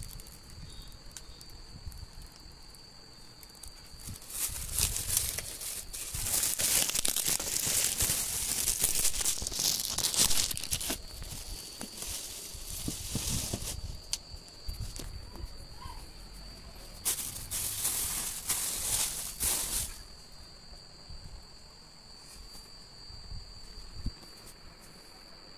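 Plastic packaging crinkling and rustling as a TV is handled out of its wrapping, in two long bouts: one from about four to eleven seconds in and a shorter one near twenty seconds.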